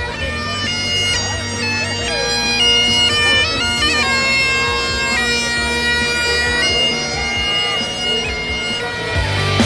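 Bagpipes playing a tune: the chanter steps from note to note, with a quick run of ornamental grace notes near the middle, over steady unchanging drones.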